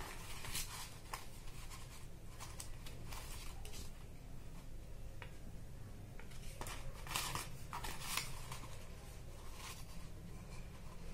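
Paper rustling and scraping as cut-out paper ears are handled and pressed onto the rim of a paper plate, in short scattered rustles with several close together about seven seconds in.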